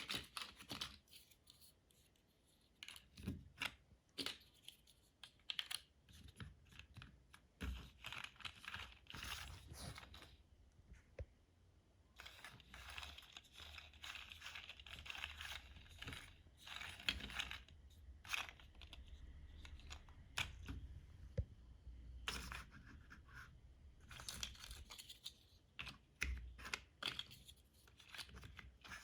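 Plastic LEGO bricks clicking and rattling as they are handled and pressed together, with stretches of rustling among the pieces.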